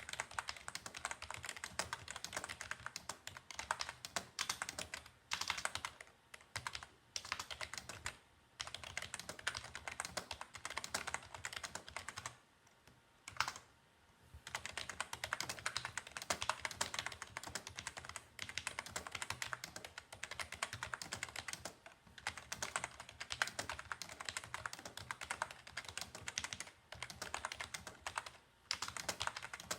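Typing on a Logitech G213 membrane keyboard: a rapid, steady run of key presses with a short pause about halfway through.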